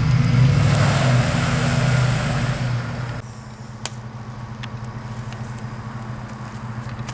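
A car engine revving hard under load with a loud hiss, as a stuck vehicle tries to drive free. About three seconds in it drops suddenly to a steady idle, with a single click shortly after.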